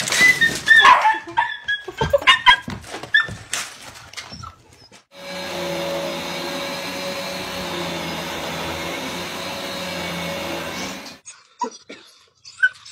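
Short, high dog yelps with clicks for the first few seconds. Then an upright vacuum cleaner runs steadily with a constant hum for about six seconds and cuts off, followed by a few faint taps.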